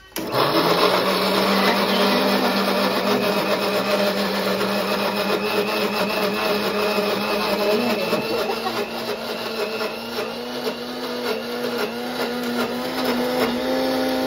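Electric mixer grinder running, blending coconut pieces with coconut water. The motor switches on just after the start with a loud, steady hum that slowly rises in pitch and wavers in the last few seconds.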